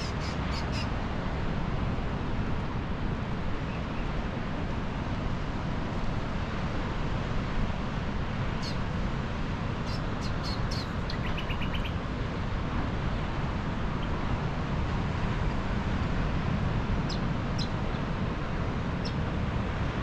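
Steady rush of wind through the trees and ocean surf, with short high chirps from small birds scattered throughout and a brief rapid trill about 11 seconds in.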